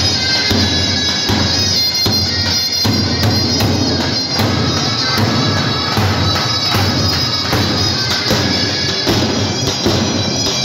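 Davul and zurna playing a halay dance tune: a continuous zurna melody over repeated strokes of the large double-headed davul drum.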